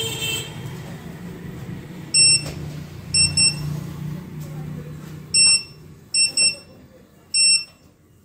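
Short, high electronic beeps, some single and some in quick pairs, sounding at uneven intervals over a low steady hum that fades out about two-thirds of the way through.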